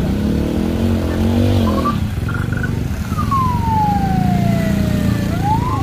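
Small motorcycle engines revving and labouring as the bikes climb a rough, steep dirt slope. A long falling whistle-like tone is heard about halfway through, and a short rising one near the end.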